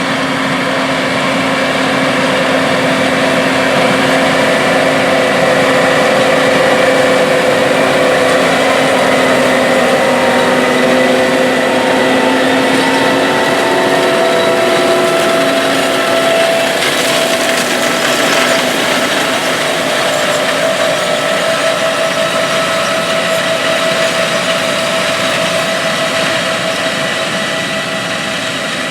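Large Case IH diesel farm machine running steadily under load in the field, the engine tones shifting in pitch about halfway through, with a brief rise in rushing noise a little later.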